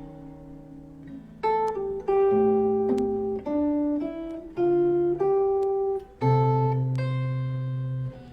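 Guitar played slowly, one plucked note after another, a melody line with low bass notes sounding under some of the melody notes. About ten notes ring out, the loudest about six seconds in.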